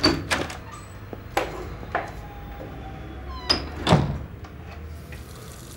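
A room door shutting with a sharp knock, followed by several scattered knocks and clunks over the next few seconds.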